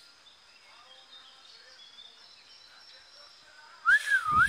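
Faint bird and insect sounds, then near the end a short, loud whistle that rises, falls and rises again, with a burst of rumbling noise on the microphone.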